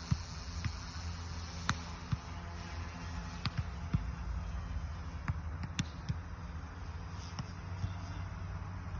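Small electric RC helicopter (OMP M1 EVO) in flight, a steady low rotor hum, with a dozen or so sharp clicks scattered irregularly through it.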